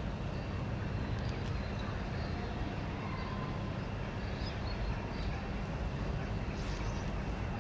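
Steady low outdoor rumble, with a few faint bird chirps above it.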